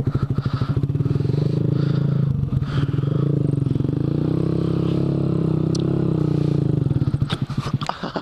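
2014 Honda Grom's 125 cc single-cylinder engine revving hard while the rear tyre spins the bike round in a donut in soft sand; the pitch rises and falls with the throttle. The revs drop about seven seconds in, followed by a few clatters near the end.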